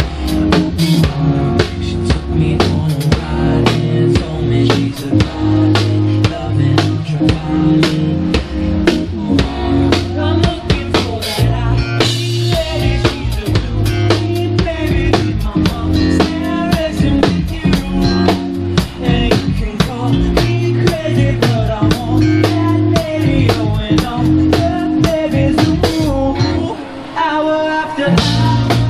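Live rock band playing a song, with a steady drum-kit beat, bass and guitar, and a wavering melodic line over the top.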